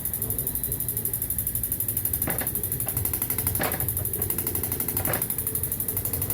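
Diesel injector test rig running with a rapid, even mechanical pulsing as injectors are fired. Three sharper knocks stand out, about two, three and a half and five seconds in.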